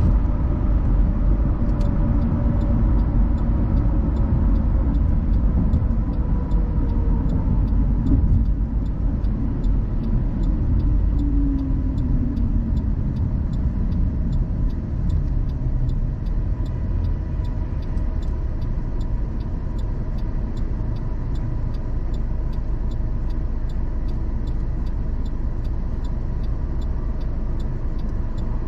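Car driving on the road: steady tyre and engine rumble. A few tones slide down in pitch during the first dozen seconds, and the noise eases off slightly after that.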